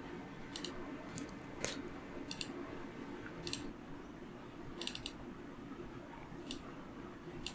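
Computer mouse clicking, about nine short sharp clicks at irregular intervals, some in quick pairs, over a faint steady hum.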